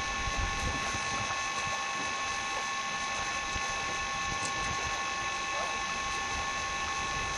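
A steady drone of several unchanging tones over a low, uneven rumble, typical of wind on the microphone.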